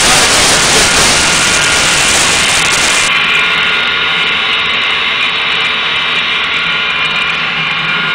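Homemade double-walled stove firing hard: a loud, steady roar of flame and forced air, with a few faint steady whining tones in it. The upper hiss thins sharply about three seconds in.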